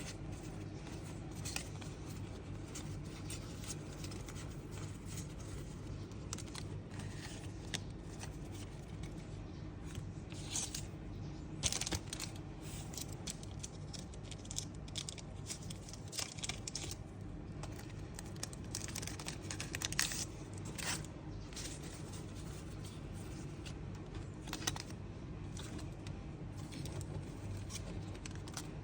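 Plastic packaging rustling and crinkling in short, irregular bursts as it is handled, over a steady low hum.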